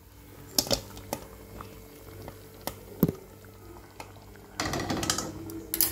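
A utensil clinking and scraping against a metal kadai as ghee-roasted grated coconut is scraped out into the payasam. There are scattered sharp clinks, a longer scrape about five seconds in, and a low steady hum beneath.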